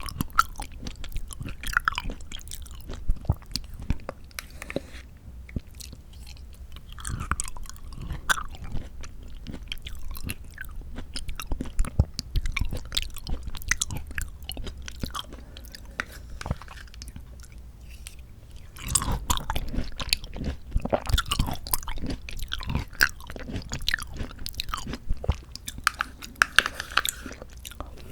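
Close-miked eating: someone chewing and biting canned mandarin orange segments from a fruit cup, with many sharp wet mouth clicks.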